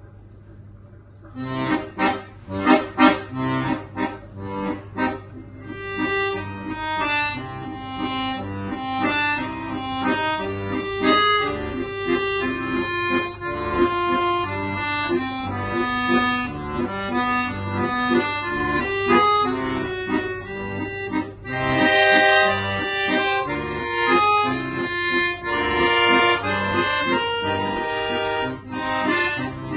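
Solo instrumental music. A piece starts about a second and a half in with a run of short, sharp detached notes, then carries on as a continuous melody over held chords.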